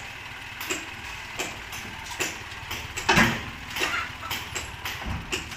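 Dump truck engine idling while its tipper body lowers after unloading sand, with irregular ticks and clanks from the body and swinging tailgate, and the loudest clank about three seconds in as they come down.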